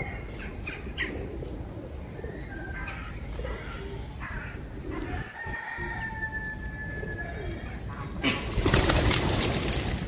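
Birds calling with short notes and one long drawn-out call in the middle, then a loud burst of wing flapping near the end.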